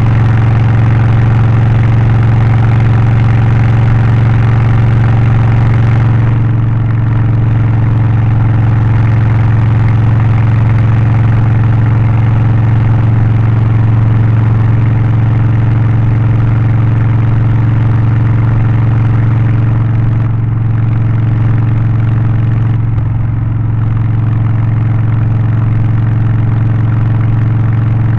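Harley-Davidson Low Rider ST's Milwaukee-Eight 117 V-twin with a Stage 1 exhaust, air filter and remap, running at a steady, unchanging pitch with a deep low note. It turns slightly duller about six seconds in.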